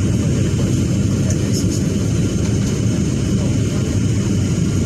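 Steady low rumble of jet engines and rushing air heard inside the cabin of a Boeing 737 airliner descending on approach to land.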